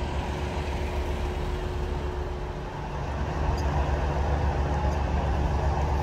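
Street tram running along its track: a steady rumble with a held hum that dips briefly about two and a half seconds in, then grows louder.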